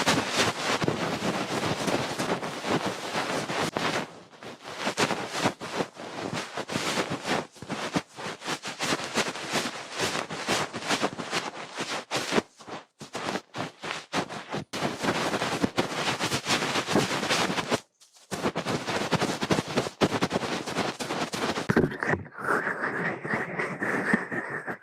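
Dense, fast crackling and clicking close to the microphone, with short breaks about four seconds in and near eighteen seconds; near the end it gives way to a steadier, higher-pitched sound.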